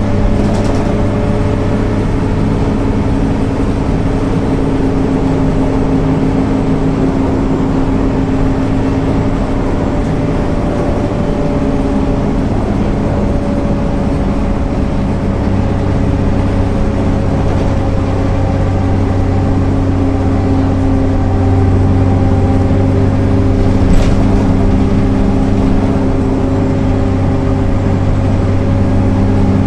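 MAN NL 262 city bus's diesel engine running steadily under way, its note sagging slightly in pitch mid-way and rising again. A single short click about 24 seconds in.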